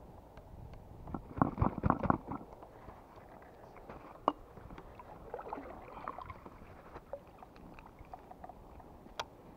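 Handling noise of a spinning rod and reel in an inflatable kayak: a cluster of knocks and rubs about a second in, a single sharp click in the middle and another near the end, with softer rustling between. Low wind and water noise sits underneath.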